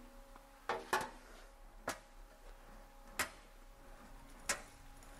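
Sheet-metal fender panel being rolled through an English wheel to work out a low spot: about half a dozen sharp, separate metallic clicks and ticks a second or so apart, over a faint steady hum.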